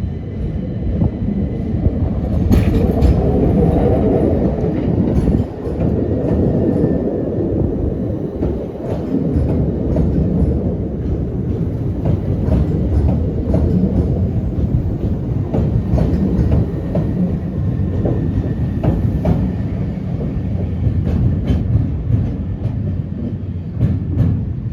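Southern Class 377 Electrostar electric multiple unit pulling out of the station: a steady low rumble with wheels clicking over the rail joints.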